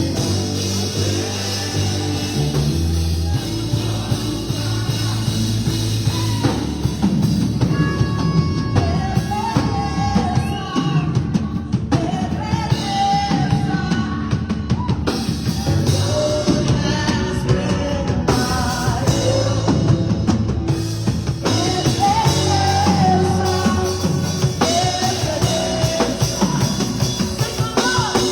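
Music with a drum kit and bass, joined by a singing voice about six seconds in.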